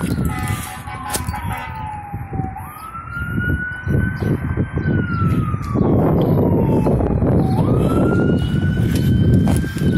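Fire engine siren on a wail: the pitch jumps up quickly, then slides slowly back down, cycling about every five seconds. A low rumble under it grows louder about six seconds in as the truck approaches.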